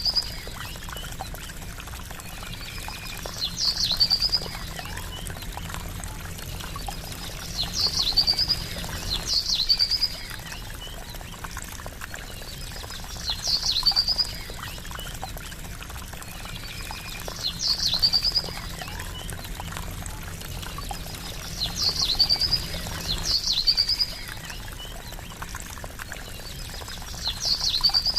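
Gently trickling water running steadily, with a short, high bird call repeated every few seconds over it, sometimes twice close together.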